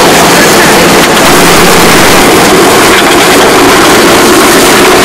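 Loud, steady running noise of a 1967 Volkswagen split-screen van driving along, its engine and road noise rushing in through the open window.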